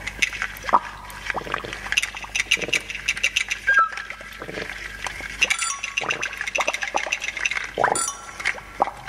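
Water dripping: drops plop one after another at an uneven pace, each a short rising blip, with light clinking ticks among them.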